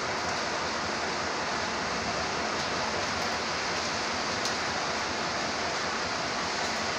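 Steady, even rushing noise with no pitch or rhythm, holding level throughout.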